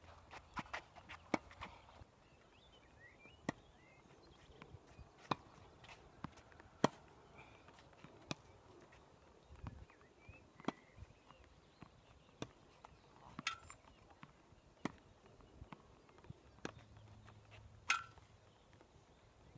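Tennis balls struck by a racket and bouncing on a hard court: sharp, irregular pops every one to two seconds, with the player's footsteps between them.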